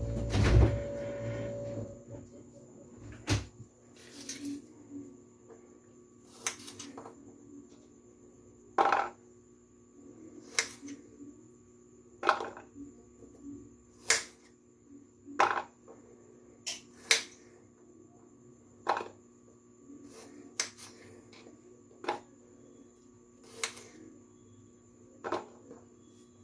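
Kitchen knife chopping garlic cloves on a cutting board: single sharp knocks, one every one and a half to two seconds. A low hum runs under the first two seconds and stops.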